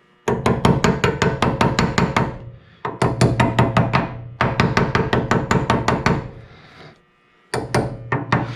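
Quick, light hammer taps on metal, about six a second in four bursts with short pauses, each tap ringing: a tool being knocked onto a rounded-off brake-line fitting to get a bite on it.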